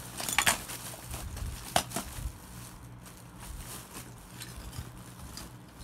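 Thin plastic bag rustling and crinkling as Lego pieces are handled inside it, with two sharp clicks of hard plastic, about half a second and nearly two seconds in, then quieter rustling.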